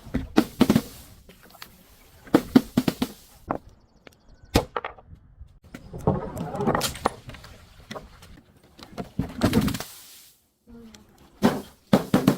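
Things being crushed: several bursts of sharp cracking and crunching with short pauses between them, including one longer grinding crunch near the middle.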